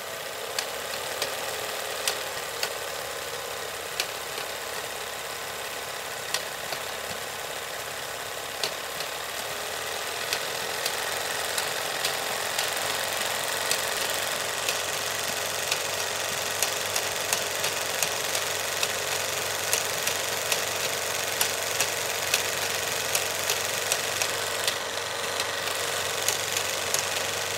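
16 mm film projector running a reel: a steady mechanical whir with irregular sharp ticks on top, getting a little louder and ticking more often from about ten seconds in.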